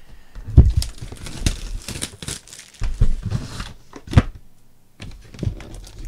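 A cardboard box of trading cards being opened: the lid pulled open and flipped back, then irregular knocks and crinkling as the foil card packs inside are handled. The sharpest knocks come about half a second in, around three seconds in and just after four seconds.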